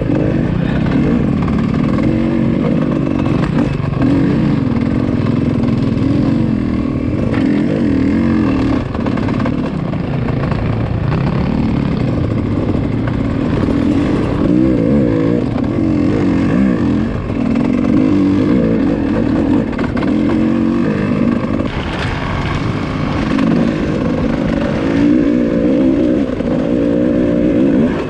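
Dirt bike engine running hard on a trail ride, its pitch rising and falling as the throttle opens and closes.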